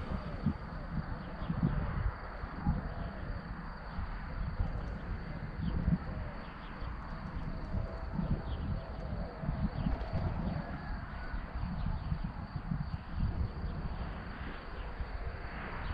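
Wind buffeting the microphone in uneven gusts, with faint bird calls in the background.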